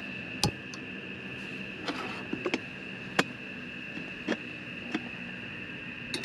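Steady high chirring of night insects, with a series of sharp clicks and light metal clinks as a canister camp stove is lit and a metal kettle is handled on a metal table. The loudest clicks come about half a second and three seconds in.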